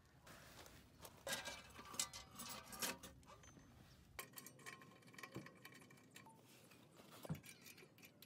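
Faint clattering in the first few seconds, then a few sharp metallic clicks and clinks as the lid, handle and fittings of a small black steel mini rocket stove are handled.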